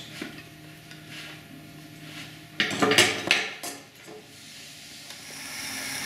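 Pottery trimming tools clinking and clattering as they are picked up from a wooden board, a cluster of clinks about three seconds in. Near the end a steady scraping hiss sets in as trimming of the clay pot on the turning wheel begins.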